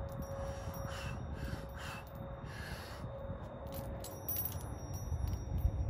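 A man's forceful exhales during pull-ups, about three, roughly a second apart, then a few light clicks and clinks about four seconds in as he lets go of the branch.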